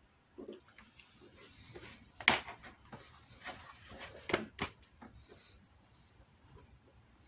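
Hands handling a Kodiak leather belt pouch on a cutting mat: the lace is pulled and the pouch is turned over and set down, with irregular rustling and several sharp knocks, the loudest about two seconds in.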